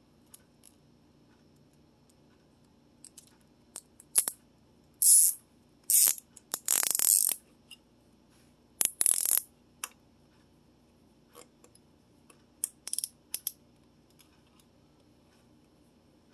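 Scattered sharp clicks and short metallic rattles and scrapes from small hardware and hand tools being handled while fitting a bicycle bottle holder. The longest rasp lasts about a second, near the middle, and a few lighter clicks come near the end.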